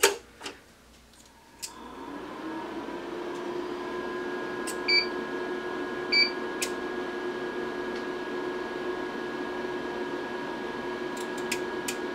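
A click as the LeCroy DDA-125 oscilloscope is switched on. About two seconds later it powers up into a steady hum with a held whine, the pitch rising slightly as it settles. Two short beeps come about five and six seconds in.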